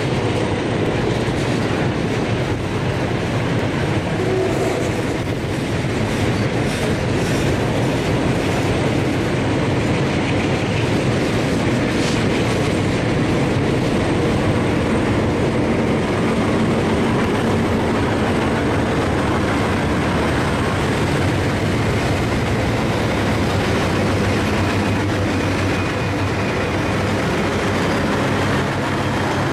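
Loaded lumber flatcars of a freight train rolling past, wheels clicking over rail joints. From about halfway through, the diesel locomotives shoving at the rear of the train pass, their engines running hard under load.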